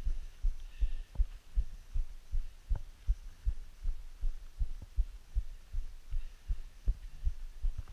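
Irregular low, muffled thumping, about three or four knocks a second, picked up by a body-worn GoPro in its housing as the wearer scrambles over rock. A couple of the knocks are sharper clicks.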